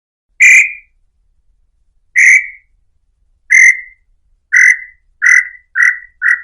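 Tataupa tinamou (Crypturellus tataupa) singing: a series of short whistled notes that come faster and faster and drop slightly in pitch, beginning about half a second in.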